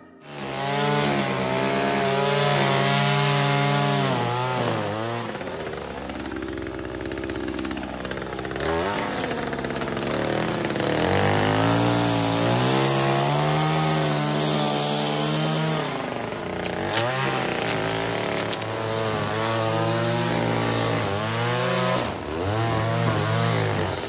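Gas-powered string trimmer running at high revs, its engine pitch dropping back and rising again several times as the throttle is eased and opened while cutting grass.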